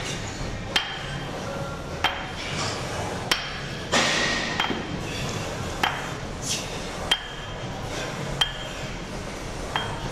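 Metal gym weights clanking in a steady rhythm, one sharp clank with a short ring about every second and a quarter, the way weights knock together through a set of repetitions.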